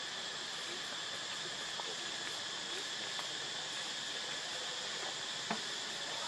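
Steady forest ambience dominated by a constant insect drone, with a few faint short chirps and one sharp click about five and a half seconds in.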